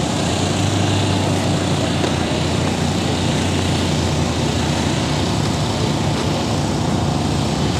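An engine running steadily, a low drone that eases off after about five seconds, under a wash of outdoor noise.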